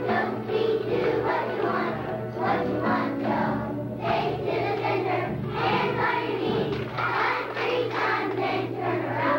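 A choir of young children singing together.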